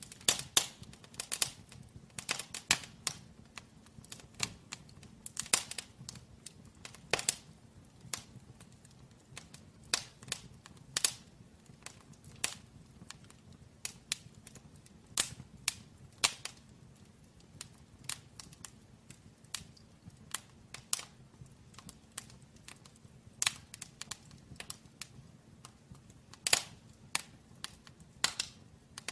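Firewood burning in a brick fireplace, crackling with sharp, irregular pops, a few each second, some much louder than others.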